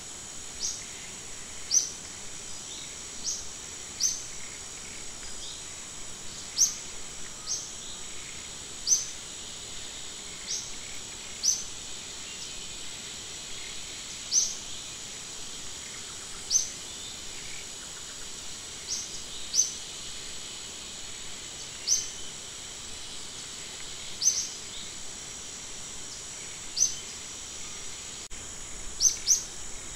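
A steady high-pitched insect drone, with short sharp high chirps repeating irregularly every second or two.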